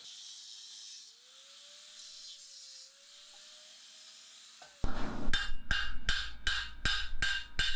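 A faint hiss, then about five seconds in a hammer starts striking steel plate, a steady run of sharp ringing blows about two to three a second.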